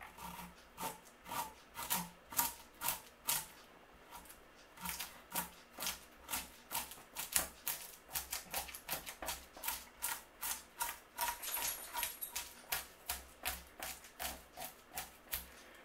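Back of a knife scraping the scales off a whole sea bass in quick repeated strokes, about two to three a second, with a short pause about four seconds in. The scales are coming off easily even though the fish was frozen.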